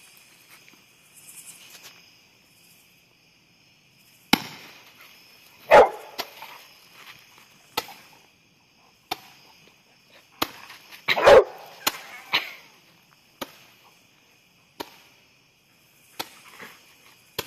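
Fireworks going off in about a dozen sharp pops at irregular intervals, two of them much louder, about six and eleven seconds in. Steady chirring of night insects runs underneath.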